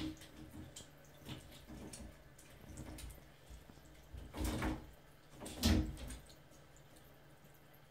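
A cat scuffling on the top rail and panels of a shower cabin as it spins after its tail: light taps and scrapes, then two louder scuffles about four and a half and five and a half seconds in.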